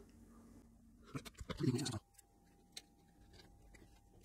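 Faint clicks and light scratching from handling a small circuit board and pressing a metal battery clip into it. A short muffled sound comes about halfway through.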